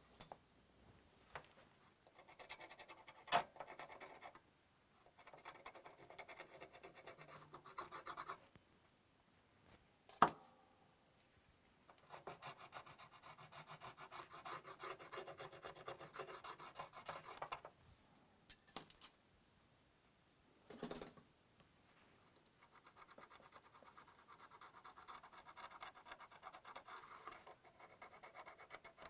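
Scraping caked grime off a grimy PS4 part by hand, in several spells of a few seconds each, with a few sharp clicks in between.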